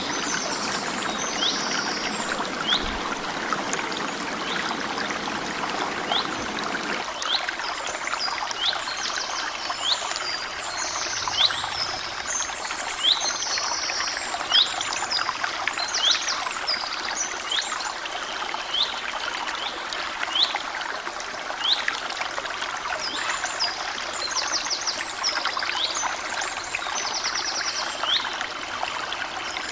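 A small stream trickling and flowing over stones, with birds calling throughout: repeated short chirps that sweep up in pitch and quick high trills, thinning out for a while in the middle.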